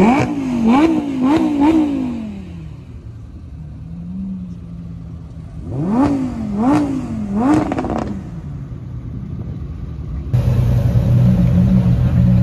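Supercar engines revved in quick blips as the cars pass. The Lamborghini Huracán's V10 gives three sharp rev blips at the start, then idles through a lull. Three more blips come about six seconds in. Near the end, after a cut, a Ferrari 812 Superfast's V12 runs steadily and louder at low revs close by.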